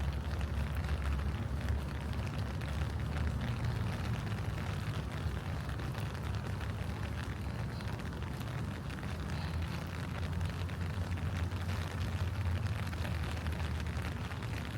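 Steady rain falling on leaves and a path, a dense patter of small drop ticks over a continuous low rumble.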